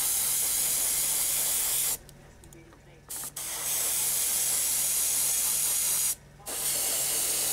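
Airbrush spraying black primer in bursts of steady hiss. It cuts off about two seconds in, gives a short blip, runs again for a longer spell, then pauses briefly and resumes near the end. A faint low pulsing hum runs underneath.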